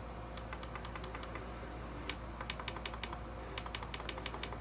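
The radio's buttons being pressed over and over, rapid uneven clicks of plastic keys while tuning between stations. A faint steady low hum runs underneath.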